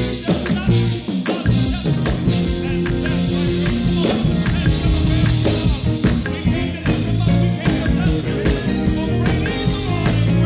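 A live gospel band plays an up-tempo instrumental passage. The drum kit keeps a fast, even beat of about four strikes a second, under electric bass, Hammond-style organ and keyboard chords.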